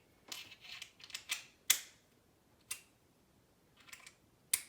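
Sharp clicks and light clatter of screwdriver bits being handled while a bigger bit is fitted to the driver: a burst of small clicks at the start, then single snaps spaced about a second apart.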